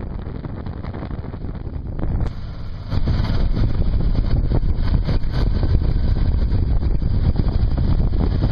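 Riding noise from a Honda NT700V motorcycle at road speed, mostly wind rushing over the microphone, with the engine running beneath it. The rush grows louder about three seconds in.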